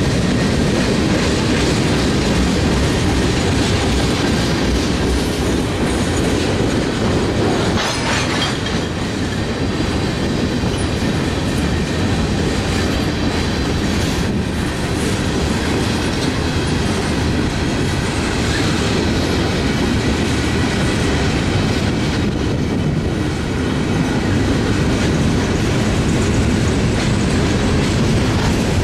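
Freight train cars (tank cars, then covered hoppers) rolling steadily past close by: the continuous noise of steel wheels on rail, with a faint high wheel squeal at times.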